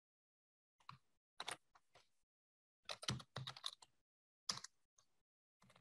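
Computer keyboard keystrokes as code is typed: scattered single clicks and short quick runs of keys, with quiet gaps between them.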